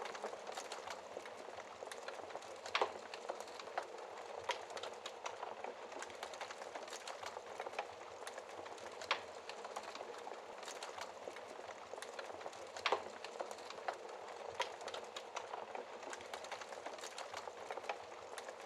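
Wood fire crackling in a fireplace: a steady hiss of small crackles with a louder sharp pop now and then, the strongest about three, nine and thirteen seconds in.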